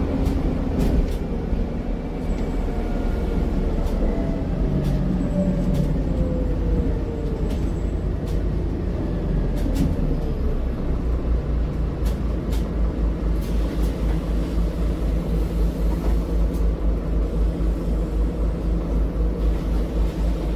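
Cabin sound of a Scania Citywide articulated city bus: a steady low engine rumble with rattles and clicks from the fittings, and a whine falling in pitch around five seconds in. From about ten seconds the rumble turns into an evenly pulsing throb.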